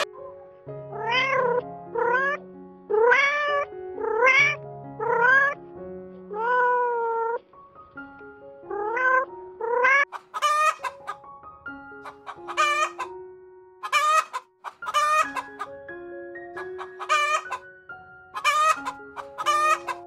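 A cat meowing repeatedly, about eight meows with the longest near the middle of the run, then chickens giving a string of short, sharp calls in the second half. Background music with steady held notes runs underneath.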